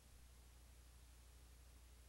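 Near silence: a faint steady low hum with hiss.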